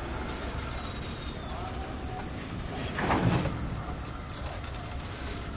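Railway flat wagon of a maintenance train rolling slowly over yard track, a steady low rumble of wheels on rail with one louder clunk about three seconds in.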